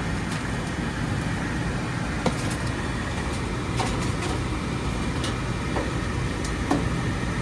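Furnace blower running with a steady low rumble and hum, with a few light clicks and taps over it.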